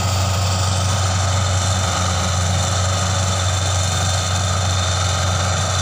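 CLAAS Crop Tiger 30 combine harvester running steadily while harvesting rice: engine and threshing machinery giving a constant low hum under an even mechanical noise.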